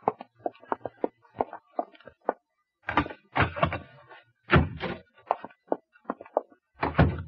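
Radio-drama sound effects of two men going into a back room: a quick run of light footstep clicks, then several heavier knocks and thuds of a door being opened and shut.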